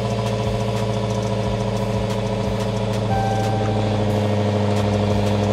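2015 Dodge Challenger Hellcat's supercharged 6.2-litre HEMI V8 idling steadily, heard from inside the cabin.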